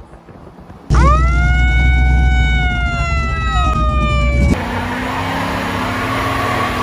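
A loud siren-like tone swoops up about a second in and sags slowly for about three and a half seconds before cutting off. It is followed by a pickup truck's burnout: the engine held at high revs over a steady hiss of spinning tyres, its pitch creeping up.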